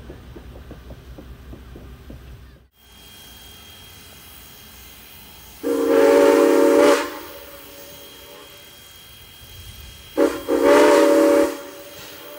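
Passenger coaches rolling past with a rhythmic rumble of wheels on the rails, cut off about three seconds in. Then a train's multi-chime horn sounds one long blast, and later a short toot followed by a second long blast.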